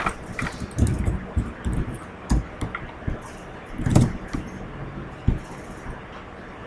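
Scattered light clicks and knocks, such as computer mouse clicks and desk handling, over a faint background hum, with a louder dull bump about four seconds in.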